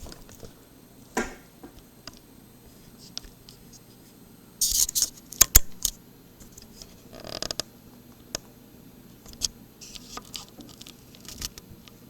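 Handling noise from small metal lock parts, the pins and springs of a gutted dimple lock, being moved about: scattered scratches and scrapes with sharp clicks. The loudest is a burst of rustling and clicking about five seconds in.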